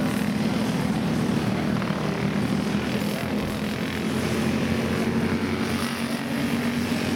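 A pack of racing karts with single-cylinder four-stroke Briggs & Stratton Animal engines running at race speed, their engines blending into one steady drone.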